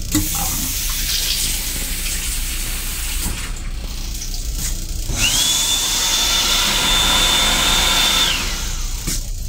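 Sensor-operated faucet and hand dryer of an M7 railcar lavatory sink unit: a steady rush of water and air, then about five seconds in a motor whine rises to a steady high pitch, holds for about three seconds and winds down.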